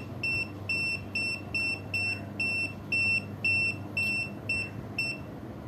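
Aneng 681 digital multimeter's buzzer beeping: a run of short, uneven high-pitched beeps, about two or three a second, that stops about five seconds in.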